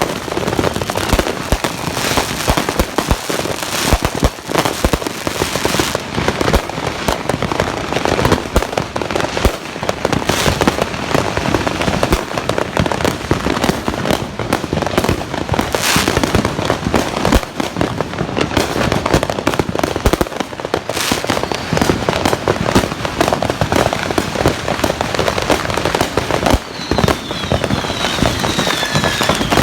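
Fireworks and firecrackers going off all around in a dense, near-continuous barrage of overlapping crackling and bangs. A few faint short falling whistles come near the end.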